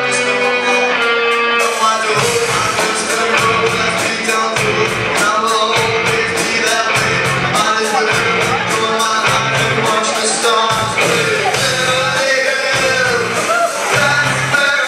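Live punk rock band playing: electric guitars, bass and drum kit, with a man singing. A held guitar chord rings for the first couple of seconds, then the bass and drums come in with a steady driving beat.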